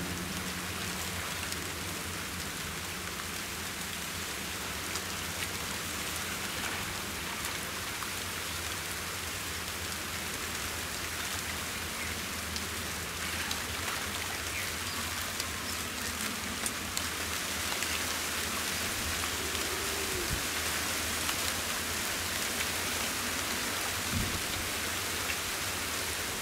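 Steady patter and sloshing of shallow muddy water, with many small splashes and clicks as hands grope through the mud, over a faint steady low hum.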